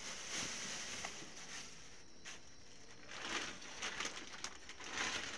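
Faint rustling and crinkling of clear plastic bags of banana chips as they are handled, in short scattered bursts that grow busier about three seconds in.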